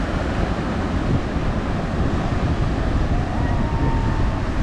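Steady outdoor ambience with a heavy low rumble, with a faint held tone about three seconds in.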